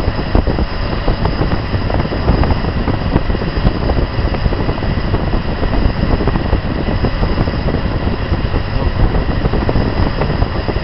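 AMC 360 V8 engine idling steadily while the idle mixture on its carburetor is being set.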